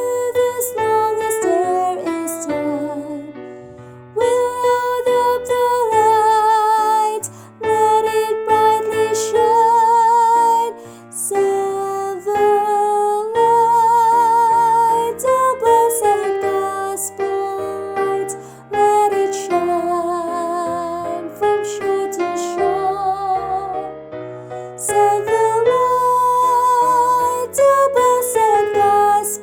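A woman singing the mezzo-soprano part of a hymn, held notes with vibrato, over piano or electric keyboard accompaniment.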